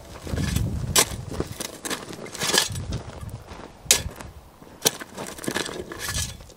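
Long-handled shovel digging into dry, stony dirt: the blade scrapes through gravelly soil several times, with a few sharp clinks as it strikes stones.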